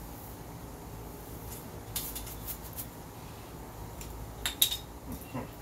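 A few light clicks and taps of small hard objects being handled, the loudest about four and a half seconds in, over a steady low hum.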